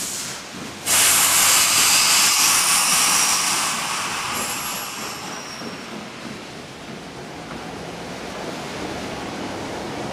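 Sudden loud hiss of compressed air from a Nagano Electric Railway 2000 series electric train about a second in, fading over the next few seconds into a lower steady noise, as the train readies to depart.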